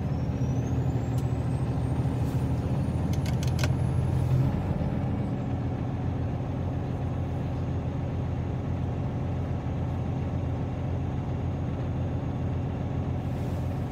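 Heavy truck's diesel engine running steadily, heard from inside the cab, while the air compressor builds brake-system pressure toward governor cutout. One steady low note drops out about four and a half seconds in, just after a few faint clicks.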